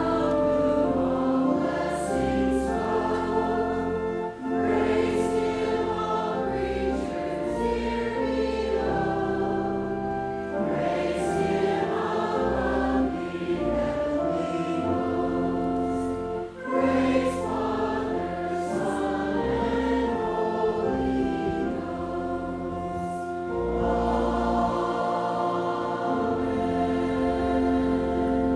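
Church congregation singing a hymn together over a low sustained accompaniment, in held notes phrase by phrase, with short breaths between phrases about 4 and 16 seconds in.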